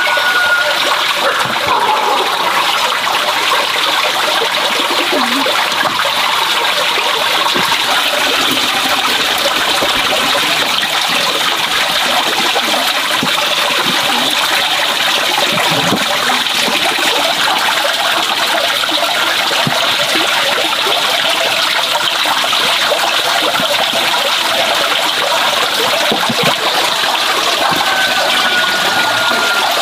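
Steady rush of running water, as of a stream or trickle, going on without a break.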